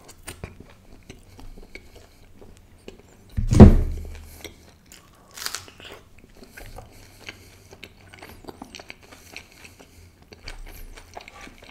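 Close-miked chewing of a mouthful of butter naan with butter chicken: wet, smacking mouth sounds and small crunches. A loud deep thump comes about three and a half seconds in, and a short hiss comes about two seconds later.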